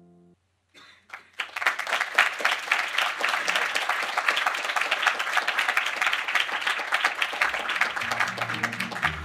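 Audience applauding, a dense, steady clapping that starts about a second in, just after a sustained piano chord dies away. Low string music comes in near the end.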